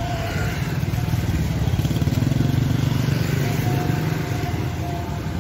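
A motorcycle engine passing close by on the street, growing louder to a peak about halfway through and then fading away.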